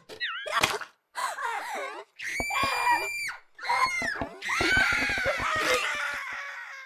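Several high-pitched screams: a short cry at the start, a long held scream about two seconds in, then a longer wavering scream from about four and a half seconds that fades near the end.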